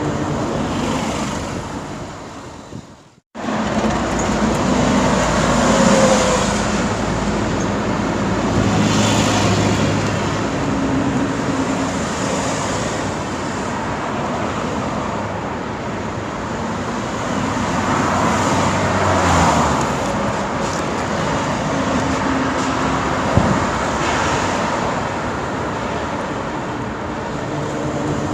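Busy road traffic: a continuous stream of vehicles passing, engine hum and tyre noise swelling and fading as individual cars go by. About three seconds in, the sound fades and drops out for a moment before the traffic noise resumes.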